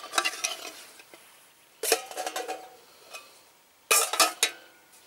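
Metal camp cookware knocking and clinking against the top of a small folding metal pocket stove, with short metallic ringing after each knock. There is a knock at the start, another about two seconds in, and a quick cluster about four seconds in. The pot rocks on the stove's raised tabs and won't sit level.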